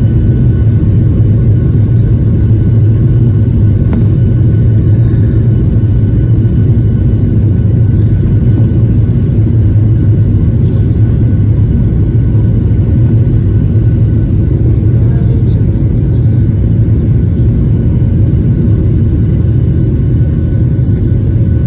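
Jet airliner's engines and cabin noise heard from inside the cabin while the plane taxis: a loud, steady low rumble.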